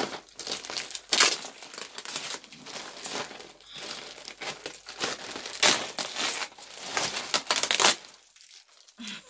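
Plastic package wrapping being crinkled and torn open by hand, in irregular rustles with a few sharper rips, then a brief lull near the end.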